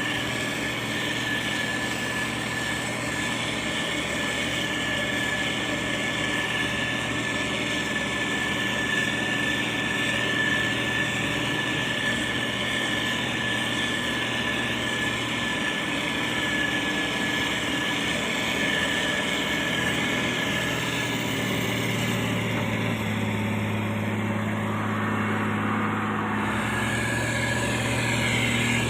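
Diesel engines of heavy road-building machinery running steadily, with a steady high-pitched whine over the engine hum; about twenty seconds in, the engine note changes.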